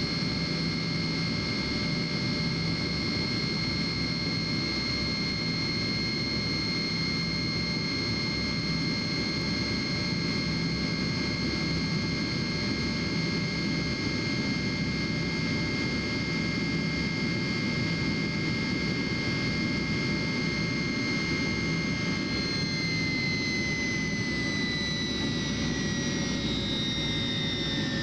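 Tupolev Tu-154M's rear-mounted Soloviev D-30KU turbofans heard inside the cabin in climb: a steady jet rumble with a high, steady whine. About 22 seconds in, the whine starts falling in pitch as the engines are throttled back.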